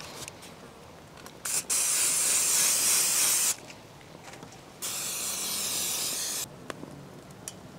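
Aerosol can of PAM cooking spray hissing in two bursts of about two seconds each, the first about a second and a half in and the second about five seconds in, as cooking oil is sprayed onto grape-leaf-wrapped skewers.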